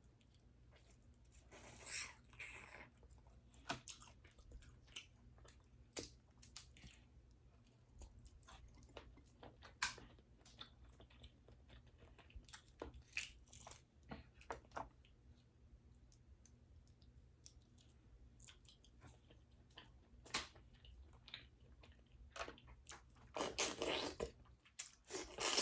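Close-miked chewing and mouth sounds of someone eating boiled crawfish and mussels, with many small scattered clicks. A couple of louder, noisier moments come about two seconds in and near the end.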